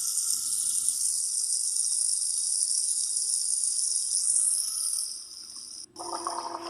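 Running water with a steady high hiss. About six seconds in it breaks off briefly and gives way to a lower, uneven watery sound.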